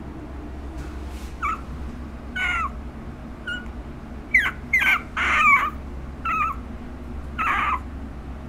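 A month-old puppy whimpering: about seven short, high whines with bending pitch, in ones and twos.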